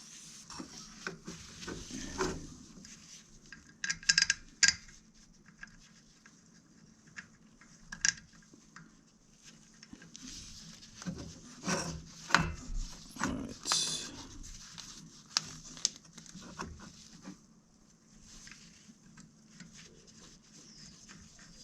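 Hands handling small metal parts while fitting a carburetor and its gaskets onto an ATV engine: scattered clicks, light clinks and rubbing, busiest in short clusters about 4, 8 and 12 to 14 seconds in.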